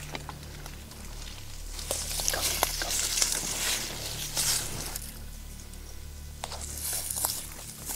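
Dry brush and leaves rustling and crackling in two spells, with a few sharp ticks, over a steady low hum.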